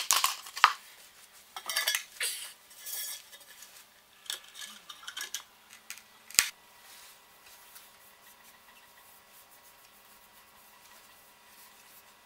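Steel notched trowel scraping through tile adhesive in short strokes, then a single sharp knock about six seconds in; after that only a faint steady hum.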